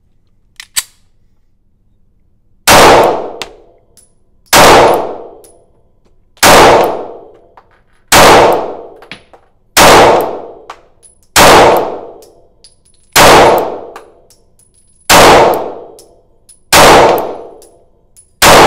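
Springfield Armory Hellcat 9mm micro pistol fired ten times at a slow, steady pace, about one shot every two seconds, each report ringing out in the reverberation of an indoor range. A couple of light clicks from the pistol being readied come first.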